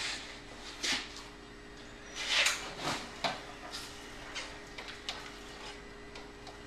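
Brief scrapes and rustles from a patient lift and its fabric sling being handled as a person is lowered into a wheelchair, the loudest about two and a half seconds in, over a faint steady hum.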